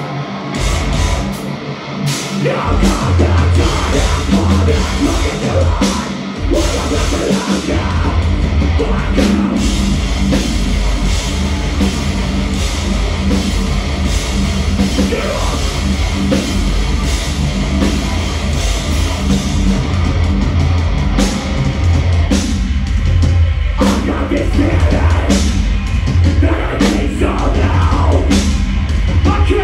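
Metalcore band playing live, with heavy distorted guitars, bass, drum kit and vocals. The full low end of the band comes in about two and a half seconds in.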